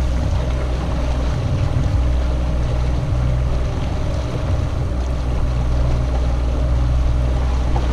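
Evinrude 90 outboard motor running steadily, pushing the boat under way, with a constant low hum mixed with the rush of wind and water.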